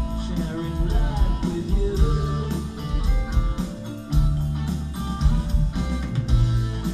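A live psychedelic rock band playing, with electric guitars, bass and a drum kit keeping a steady beat.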